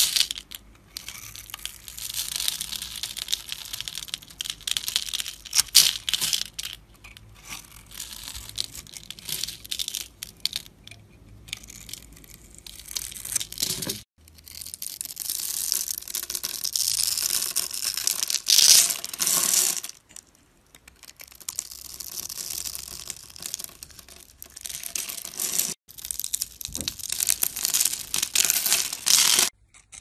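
A knife blade cutting through bars of dry, grid-scored soap, with crisp crunching and crackling as small soap cubes break off and scatter. It comes in a few separate runs, with short breaks about 14 and 26 seconds in.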